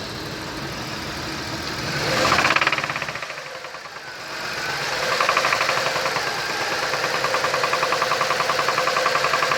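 Toyota 1JZ-FSE 2.5-litre straight-six engine with a knock. It is revved briefly about two seconds in, then runs at raised speed with a fast, even ticking knock.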